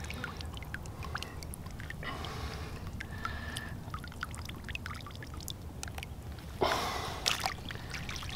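Water dripping and splashing around a freshly caught common carp as it is unhooked and handled in shallow water, with scattered small drips and ticks and a louder splash about six and a half seconds in.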